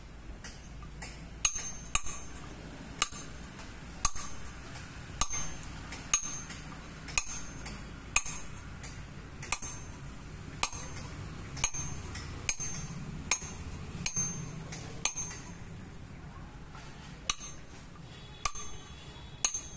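Small hammer striking a chisel against the face of a stone grinding slab (sil), pecking fresh grooves into it: sharp taps with a short high metallic ring, about one or two a second, with a short pause near the end.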